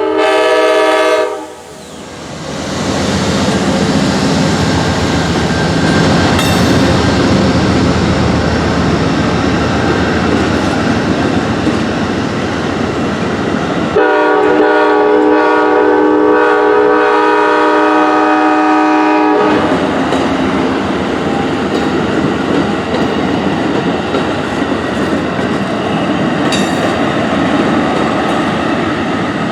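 Amtrak P42DC diesel locomotive passing at speed: its horn sounds a chord that cuts off about a second in, then the locomotive rumbles by. A second long horn blast runs from about 14 to 19 seconds in, over the steady noise of passenger cars rolling past, with wheels clacking over the rail joints.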